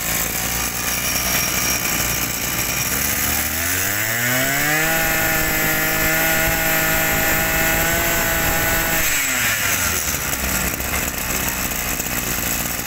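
A 26cc brush cutter engine idling, then revved up about three seconds in. It is held at high speed for about four seconds and let back down to idle.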